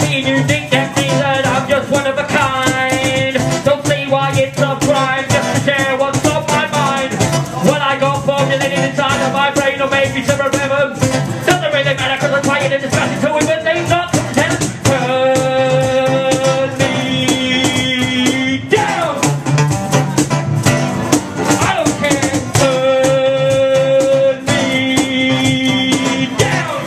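Live music through a PA: a quick rhythm of vocal beatbox hits into a microphone with guitar accompaniment. Sung notes are held for a few seconds twice, about midway and near the end.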